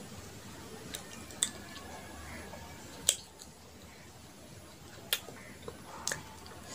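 Close-up eating sounds: fingers dipping into a small glass bowl and food taken by hand into the mouth, with about four sharp clicks and smacks, the loudest a little after three seconds and just after five seconds.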